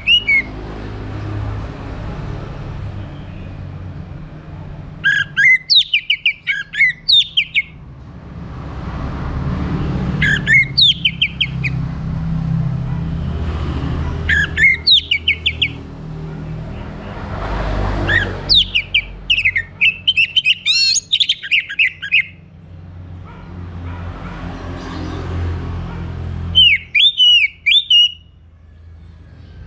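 Orange-headed thrush singing in five bursts of quick, varied whistled phrases a few seconds apart, the longest about four seconds, over a steady low rumble.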